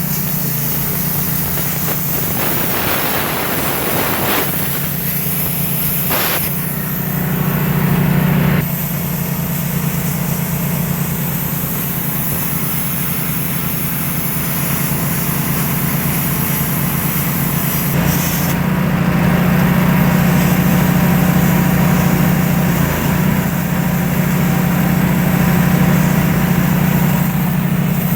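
Portable generator engine running steadily, with the hiss of a plasma cutter's air and arc over it as the torch cuts metal; the hiss changes twice, about a third and two thirds of the way through.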